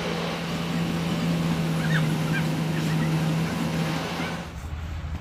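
Steady low engine hum from heavy construction machinery, over rough outdoor site noise, with a few faint short chirps; the hum stops about four and a half seconds in.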